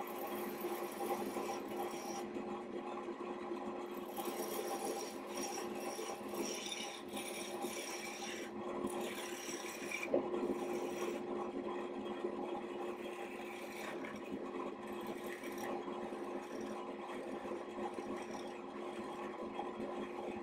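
Wood lathe running with a steady hum while a parting tool cuts into a spinning black walnut blank. The cut scrapes and hisses in repeated bursts as shavings come off, with one sharp click about halfway through.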